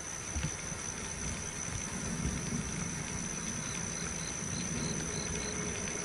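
Steady high-pitched insect drone, like a cricket or cicada, over outdoor background noise, with a short run of faint high chirps in the second half.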